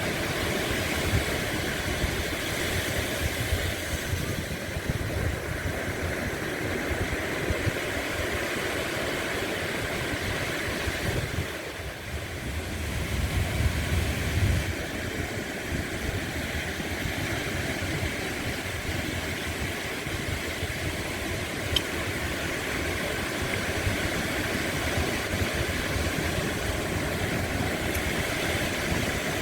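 Sea waves breaking and washing on the shore: a steady, deep rumbling surf with a hiss above it. It dips briefly about twelve seconds in, then surges again.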